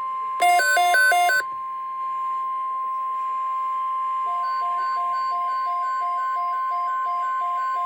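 NOAA Weather Radio warning alarm tone, a steady single pitch near 1050 Hz sounding ahead of a National Weather Service alert. About half a second in, a brief burst of stepping tones plays over it for about a second. From about four seconds in, a separate beep repeats about three times a second.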